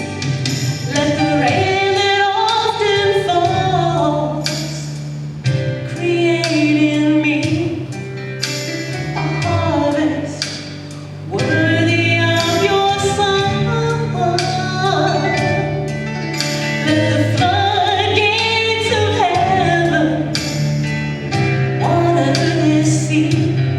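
Gospel worship song: a woman singing a melody over steady instrumental accompaniment with sustained bass notes and a regular beat.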